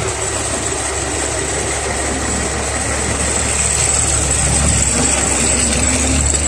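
A city bus engine running close by: a steady low rumble over general street traffic noise.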